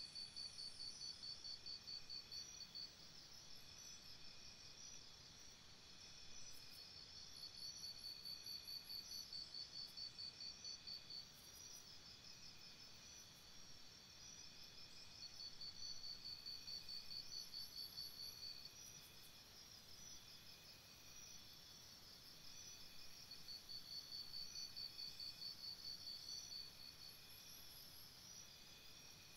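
Faint night chorus of several crickets chirping. High, pulsing trills come in runs of a few seconds at about four chirps a second, overlapping at slightly different pitches.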